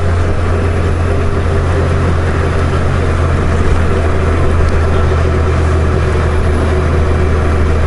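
Honda Goldwing GL1500 motorcycle riding at a steady cruise: a constant low engine drone under steady wind and road noise.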